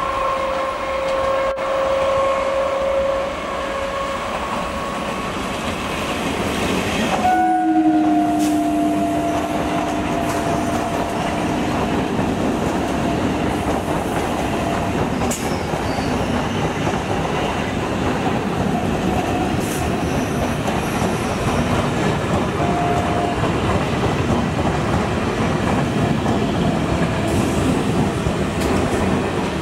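Suburban electric multiple-unit trains passing at speed: a steady horn blast in the first few seconds, then about seven seconds in a second horn sounds for several seconds, dropping slightly in pitch, over a continuous rumble and clatter of wheels on the rails.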